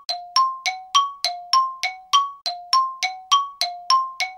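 A two-note ding sounding in an even tick-tock rhythm, higher and lower notes alternating at about three strikes a second, each note ringing briefly: a sound-effect chime marking time while the peanut butter is being stirred.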